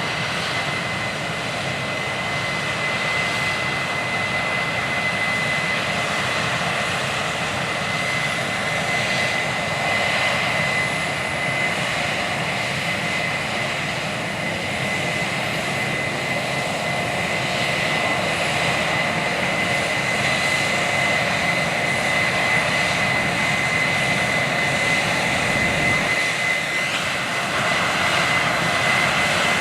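Case IH 9240 Axial-Flow combine running while harvesting wheat: a steady, loud machine drone with a high, constant whine held over it.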